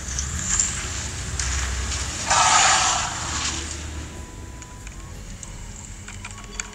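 Low rumble of an idling vehicle engine with wind noise on the microphone, and a loud rush of noise a little over two seconds in that lasts under a second.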